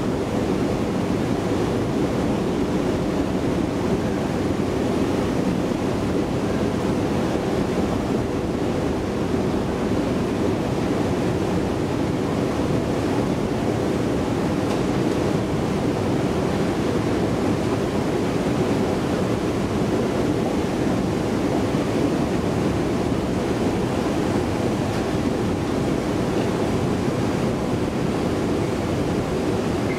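Steady running drone of a new KONE TransitMaster escalator, heard while riding it down, with a faint steady hum.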